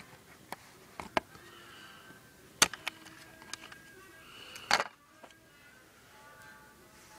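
Sharp clicks and clacks of plastic and metal parts of a Tokyo Marui MP5A4 airsoft gun's hop-up and barrel assembly being worked loose by hand, the loudest about two and a half seconds in and a longer clatter just before five seconds. Faint background music underneath.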